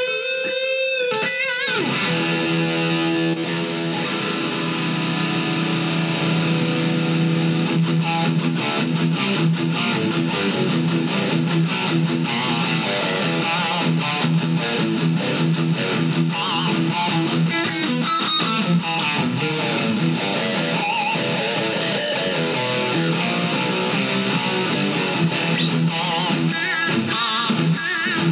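Electric guitar through a Vox Valvetronix AD50VT-XL modeling amp on its high-gain 'Damage' setting, played heavily distorted. A held note with vibrato dies away about a second and a half in. Fast riffing follows over a ringing low note, with bent, wavering lead notes near the end.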